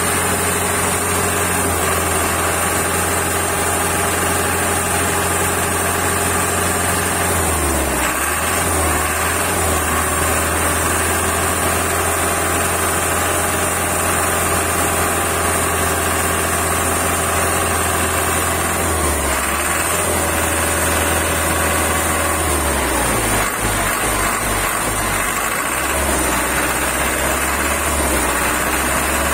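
Isuzu diesel truck engine running at idle. Its note dips and recovers about eight seconds in, shifts again near twenty seconds, and runs unevenly for a few seconds after that before settling.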